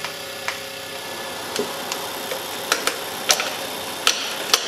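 Sharp metallic clicks and taps from hand work on wiring and fittings inside an armoured vehicle's hull, a few at first and more often in the second half, over a steady electrical hum from the vehicle's electrics, which have just been powered up.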